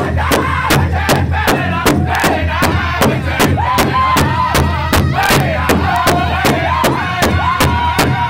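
Powwow drum group striking one large shared drum in unison at a fast, even beat while singing together in high-pitched voices, with long held notes near the end.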